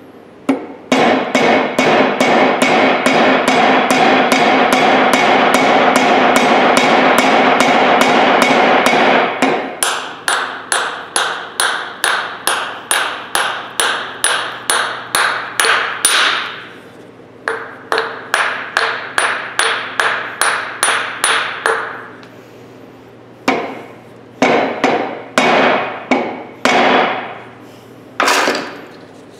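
Small hammer driving a metal shim wedge into the eye of a 3 lb hammerhead to tighten it on its wooden handle. Quick ringing metal-on-metal blows come about three a second in runs with short pauses, then a handful of slower, separate blows near the end.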